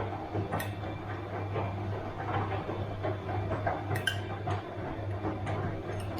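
Bosch washing machine running: a steady low hum with scattered, irregular clinks and knocks from the drum.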